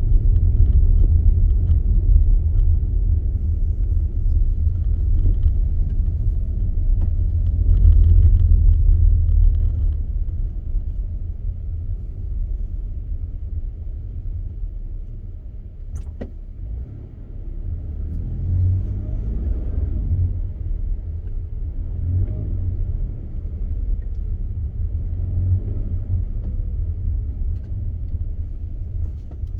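Car driving on a snowy road: low, steady road and tyre rumble, louder for the first ten seconds and then easing, with a single sharp click about sixteen seconds in.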